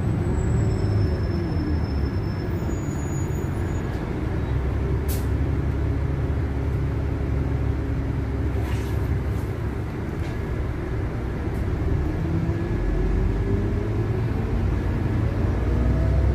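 Cabin noise of a LiAZ 5292.71 city bus under way: a steady low engine and road rumble with a whining tone that dips in pitch in the first couple of seconds and climbs again toward the end. A few faint clicks and rattles come through.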